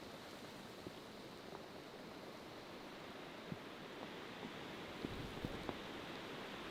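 Steady rain falling, with scattered drops tapping close by, a few more of them near the end.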